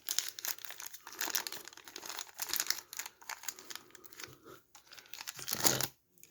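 Crinkling and rustling as a box of SouthOrd padlock shims is handled and a shim is picked out: a dense run of small crackles, with a louder burst near the end.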